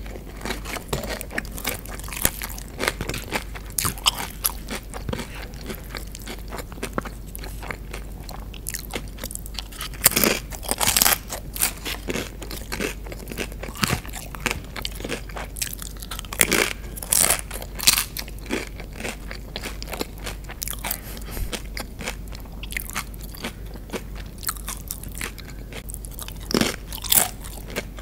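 Close-miked chewing and crunching of tortilla chips and a lettuce-topped burrito bowl, a steady run of small crackly crunches with louder bites about ten seconds in, around sixteen seconds, and near the end.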